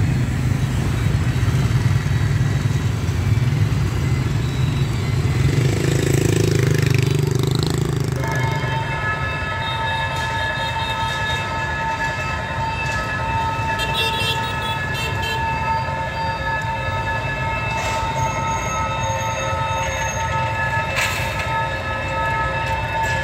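D19E diesel locomotive hauling a passenger train past a level crossing: a heavy low engine rumble for the first eight seconds or so, with the rolling of the cars. About eight seconds in, a steady high-pitched ringing tone starts and holds to the end while the train rolls on.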